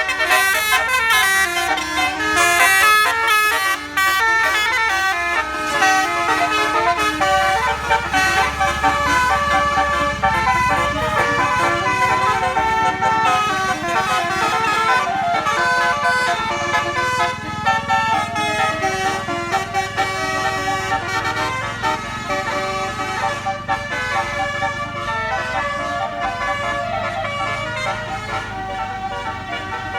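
Bus 'telolet basuri' multi-tone air horn playing a quick tune of changing notes, with the bus engine running underneath.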